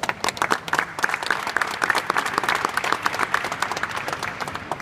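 Crowd applauding, with sharp hand claps close by; the clapping dies down near the end.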